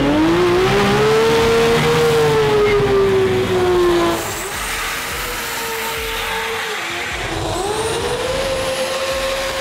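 Drag car's engine held at high revs during a burnout, rear tyres spinning; the pitch rises, then sags slowly. About four seconds in it drops to a quieter stretch of engine sound, which climbs in pitch again near the end and holds.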